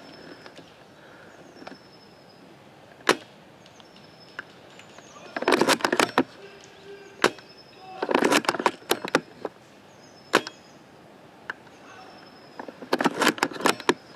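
Airsoft gunfire: three short bursts of rapid snapping shots, with single sharp cracks between them.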